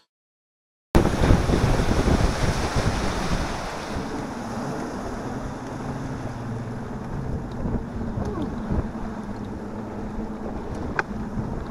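Boat underway across a lake: wind buffeting the microphone and water rushing past the hull over a steady low motor hum. It starts after about a second of silence and is loudest in the first few seconds.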